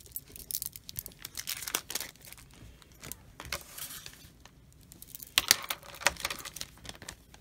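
Small plastic zip-lock bead bags crinkling as they are handled, in three bursts with a few sharp clicks.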